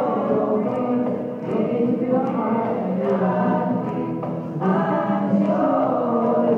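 Live acoustic song: a man singing into a microphone, held notes with wavering pitch, over an acoustic guitar strummed in a steady rhythm.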